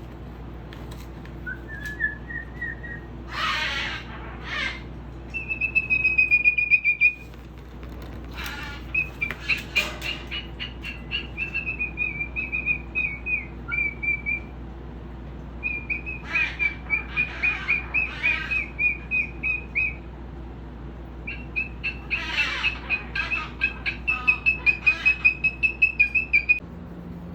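Pet bird calling in long runs of rapid, evenly repeated high chirps, about four or five a second. A few short, harsh, noisy squawks break in between the runs.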